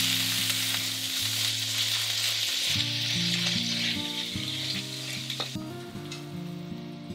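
Cabbage and potato pieces sizzling loudly as they are stir-fried in a frying pan over a gas flame and stirred with chopsticks. The sizzle cuts off abruptly about five and a half seconds in.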